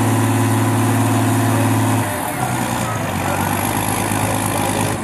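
Pulling tractor's diesel engine held at steady high revs, then throttled back about two seconds in, its note dropping to a lower, rougher running, as the aborted pull ends.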